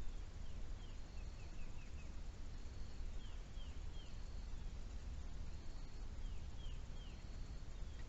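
Small birds chirping outdoors: short, quick notes that slide downward, in little runs of three to five, under a steady low rumble.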